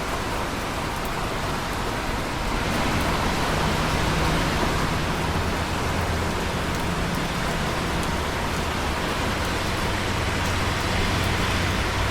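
Steady rain falling, an even hiss with scattered drop ticks. It gets slightly louder about two and a half seconds in.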